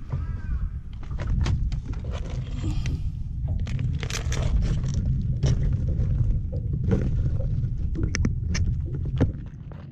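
Live swimming crabs' legs and claws clicking and scraping on a hard wet surface as they are handled, over a steady low rumble that stops sharply near the end.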